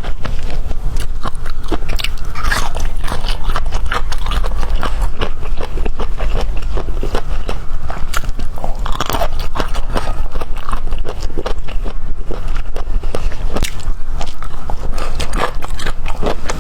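A person biting and chewing bamboo shoot, close-miked, with many crisp, irregular crunches over a steady low hum.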